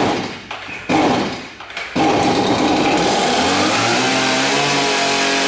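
Two-stroke chainsaw being pull-started: two short bursts as the cord is pulled, then about two seconds in the engine catches and keeps running loudly, its pitch shifting as it runs.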